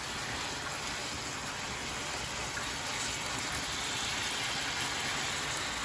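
Pork chops and steak frying with sliced onions in a pan: a steady sizzle.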